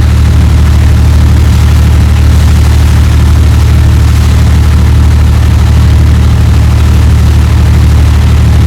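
A boat's engine running with a steady, loud low drone, unchanged throughout.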